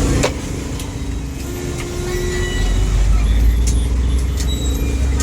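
Street traffic: a motor vehicle's engine rumbling low and close, strongest in the second half, with a few scattered clicks.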